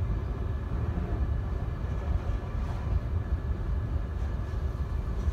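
Steady low rumble inside a car's cabin, the car idling in neutral on a car wash conveyor.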